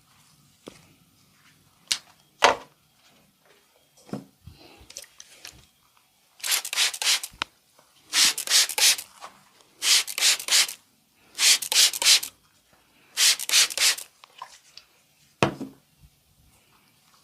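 Hands rubbing briskly during a massage, in five bursts of about a second each, each made of several quick strokes. Two sharp smacks come near the start and one more near the end; the smacks are the loudest sounds.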